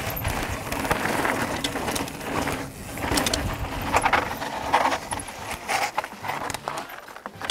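Mountain bikes riding over a loose dirt trail: tyres rolling and crunching on dirt with a rattle of chains and parts, and several sharp knocks through the middle as the bikes hit bumps and land.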